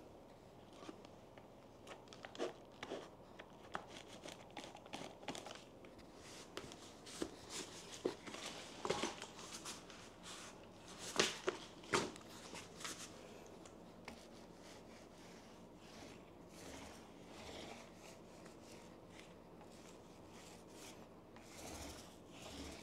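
Faint rubbing and rustling of a small paint roller being loaded and rolled over a table's surface, with scattered sharp clicks of handling, loudest near the middle.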